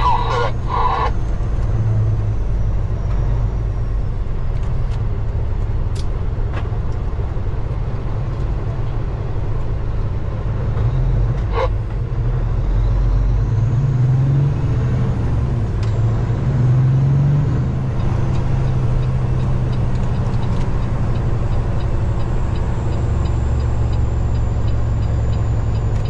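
Semi truck's diesel engine and road noise heard from inside the cab while driving: a steady low drone whose pitch shifts a little around the middle.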